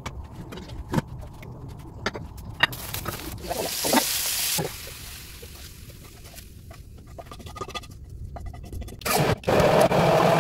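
Kitchen cooking sounds: utensils clicking, knocking and scraping in a pot, with a stretch of hissing about three to four and a half seconds in and a louder rushing noise starting near the end.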